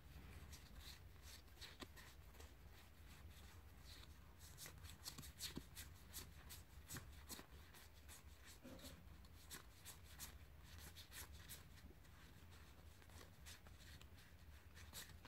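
Faint clicks and rustles of Dinosaur King trading cards being flicked through one by one in the hands, over a low steady hum.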